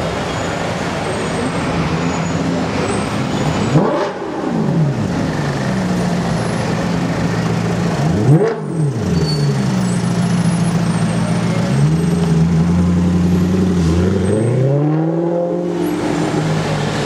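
Sports car engine idling in slow traffic, blipped sharply twice, about four and eight seconds in, then revved up and held at higher revs near the end.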